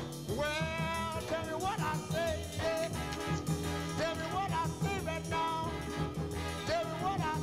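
Background music: a melody that bends and slides in pitch over a steady, repeating bass line.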